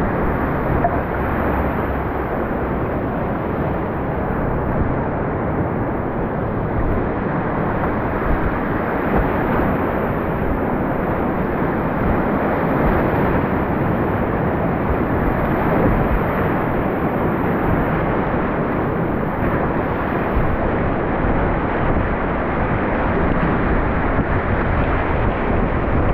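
River whitewater rushing loudly and steadily, close to the microphone.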